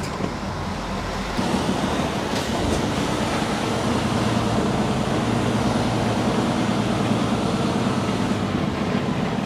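Heavy truck's diesel engine running under load as the truck moves slowly, a steady low drone that grows a little stronger about a second and a half in and then holds level.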